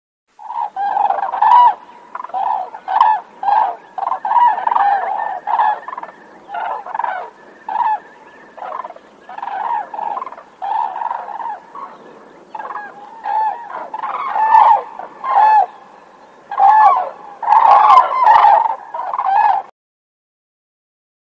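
Whooping cranes calling: a long series of loud, repeated calls, often overlapping one another, that cut off abruptly near the end.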